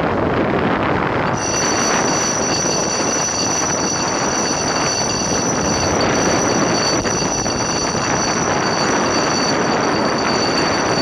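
Steady rush of wind and water on a racing catamaran under sail. A high, steady whistling whine comes in about a second and a half in and holds.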